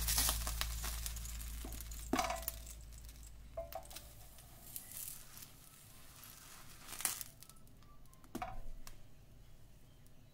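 Wooden spatula knocking softly against a nonstick frying pan as two thick soufflé pancakes are flipped one after the other: four short knocks spread a few seconds apart. Background music fades out over the first couple of seconds.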